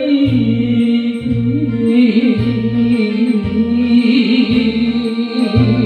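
Karaoke backing music for a Taiwanese-language song: short bass notes pulse under a long, wavering melody line, with keyboard coming in near the end.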